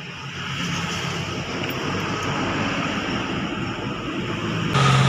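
A vehicle running, its steady rumble growing louder, then a sudden jump to a louder, steady hum near the end.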